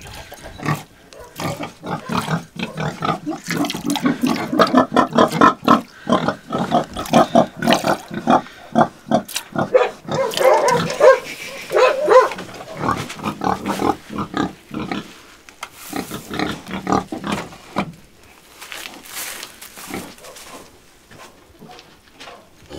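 Pigs grunting and squealing in quick, rapid runs of short calls, loudest over the first two-thirds and thinning to a few quieter grunts near the end.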